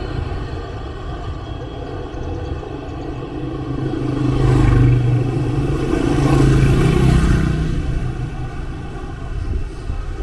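Small motorcycles and scooters passing close by, their engines swelling twice as they go past, about halfway through and again a little later, with the engine pitch rising on the second.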